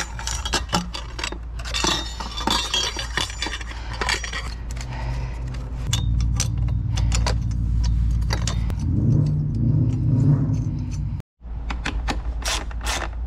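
Hand tools and steel exhaust parts clinking and clicking as a wrench tightens the mounting bolts of a pit bike's aftermarket exhaust and the header pipe is fitted to the engine. A low steady hum sits underneath, strongest partway through.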